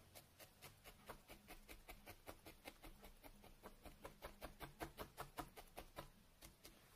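A felting needle stabbing repeatedly through wool into a felting pad as a cactus limb is shaped. Faint, quick, even pokes, about six a second, stop shortly before the end.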